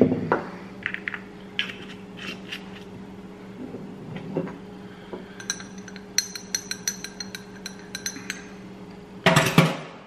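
A metal spoon stirring a drink in a glass tumbler, clinking against the glass about five or six times a second for some three seconds in the middle, after a few scattered clinks and knocks. A short, louder burst of sound comes near the end.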